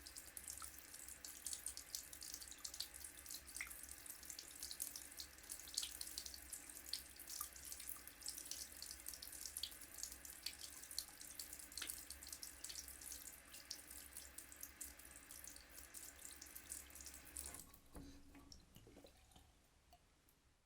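Water running from a tap into a sink, a steady splashing stream with many small splash ticks. Near the end the flow stops abruptly, leaving a few faint drips that fade away.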